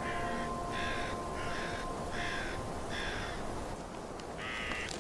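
A corvid cawing over and over in short, harsh calls, about one and a half a second. After a pause comes a louder call near the end.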